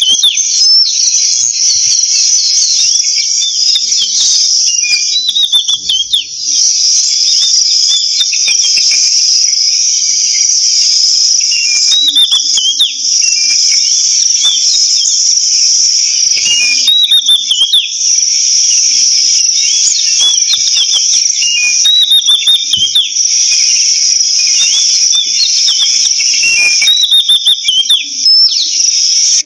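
Oriental magpie giving short, curving whistled phrases every few seconds over a continuous high, steady chorus of insects, crickets or cicadas, which is the loudest sound.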